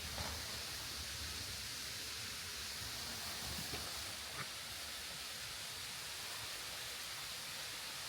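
Waterfall's steady rush of falling water, an even hiss, with a few faint ticks around the middle.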